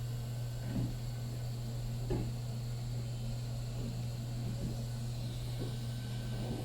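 A steady low hum with a few soft, irregular knocks, as of small objects being handled on a work surface.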